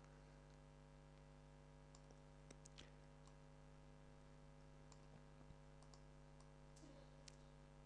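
Near silence: a few faint computer-mouse clicks, scattered irregularly, over a low steady electrical hum.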